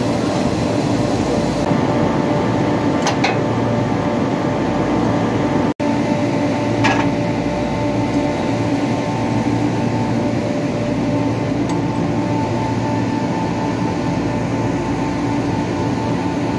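Steady electric hum of running chiller and refrigeration machinery, with a couple of faint ticks. The hum drops out for an instant about six seconds in.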